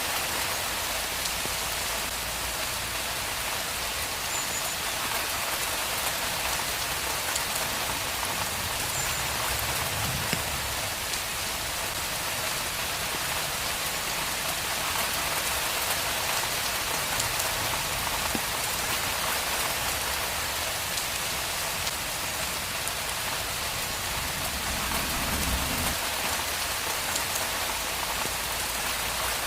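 Steady rain falling on a street, an even dense hiss of drops. A faint low rumble swells under it twice, about ten and twenty-five seconds in.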